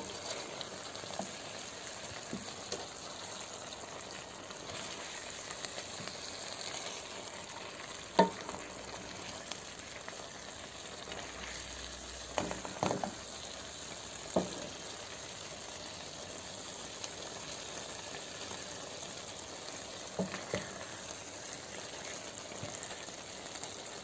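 Chicken breast pieces and chopped peppers sizzling steadily in a frying pan, with a few scattered sharp knocks as the food is stirred.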